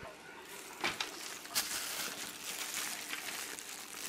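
Crinkling and rustling of a thin disposable plastic glove close to the microphone, with a couple of sharp clicks from handling.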